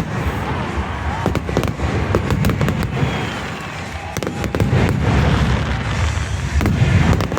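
Fireworks display going off: many overlapping bangs and crackles over a continuous low rumble, easing slightly around the middle before building again.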